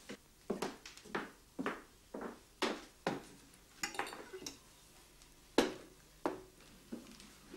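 Dishes and cutlery clinking and knocking on a laid dinner table as a meal is served: a string of separate clinks, the sharpest about two thirds of the way through.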